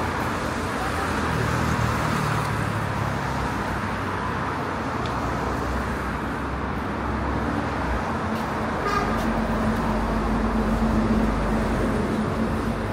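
Busy city street traffic: steady road noise with the engines of passing vehicles. One engine's low hum grows louder about nine seconds in and fades again before the end.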